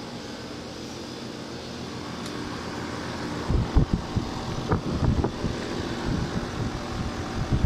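Trane outdoor air-conditioner units running with a steady hum. From about three and a half seconds in, irregular low thuds, like wind buffeting or handling of the microphone, come and go over it.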